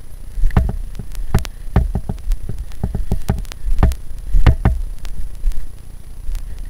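Someone scrambling over cave rock: a string of about a dozen irregular sharp knocks and taps, with low bumps under them.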